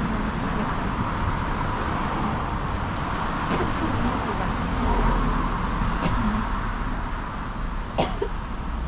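Street ambience dominated by a steady hum of road traffic. A few short sharp clicks stand out, the loudest about eight seconds in.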